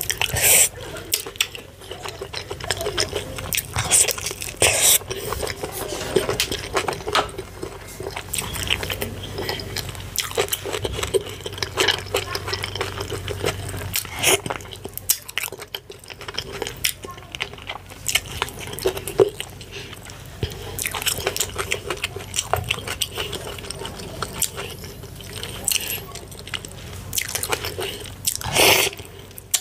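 Close-miked eating sounds: fufu with slimy ogbono and ewedu soup being chewed and swallowed. Irregular wet smacks and sticky mouth clicks run throughout, with a louder burst near the end.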